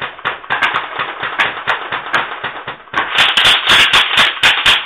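Airsoft gun firing in rapid succession at a tin can, a fast run of sharp cracks several a second that gets louder about three seconds in.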